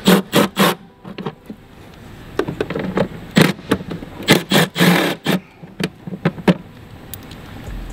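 Compact Milwaukee Fuel cordless impact tool running in several short bursts as it backs out fasteners.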